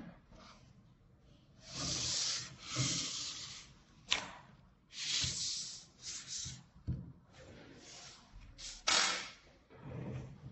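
Handling noise from a steel shaft and black plastic end flange being worked into the end of a 330 mm roll: a series of short brushing scrapes with a few sharp clicks.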